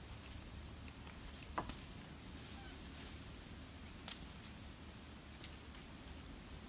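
Faint forest ambience: a steady low rumble and a steady thin high tone, with a few sharp clicks or snaps, the loudest about one and a half seconds in.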